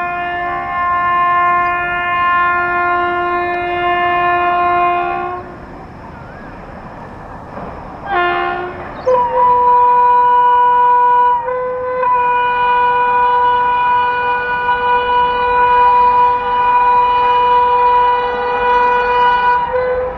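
Air horn of an Indian Railways WAP-7 electric locomotive sounded as a warning while running through a station at speed: a held blast of about five seconds, a short blast, then a long blast of about eleven seconds in a different tone.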